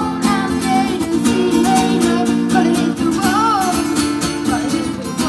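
A boy singing a melody while strumming chords on an acoustic guitar, both amplified through PA speakers.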